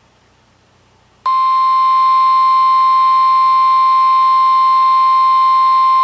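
NOAA Weather Radio's 1050 Hz warning alarm tone from an Oregon Scientific WR-3000 weather radio: a loud, single steady tone that starts abruptly about a second in after faint hiss. It signals that a warning is about to be broadcast.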